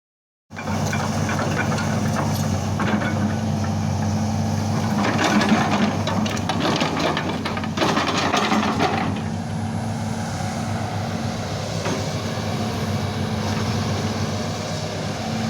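Hitachi ZX200 hydraulic excavator's diesel engine running steadily, cutting in abruptly about half a second in; between about 5 and 9 seconds in it gets louder with a clattering, hissy layer of machine noise.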